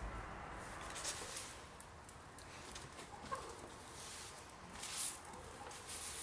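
Faint scuffs and rustles, with one short animal call about three seconds in.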